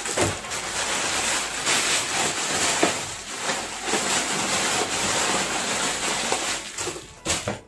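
Plastic packaging and bubble wrap crinkling and rustling as it is handled and pulled out of a cardboard box, a steady dense crackle throughout with a sharper rustle near the end.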